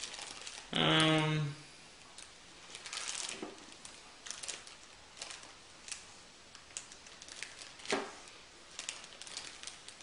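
Clear plastic accessory bag holding rack-mount screws crinkling and rustling in short irregular bursts as it is handled, with a sharper crackle about eight seconds in.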